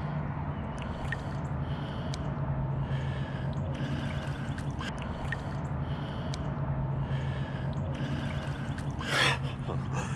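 A person breathing heavily close to the microphone, a breath about every second, over a steady low hum, with a short louder rustle about nine seconds in.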